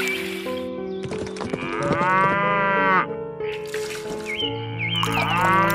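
Cow mooing twice, one long call about two seconds in and another near the end, each rising and falling in pitch, over background music.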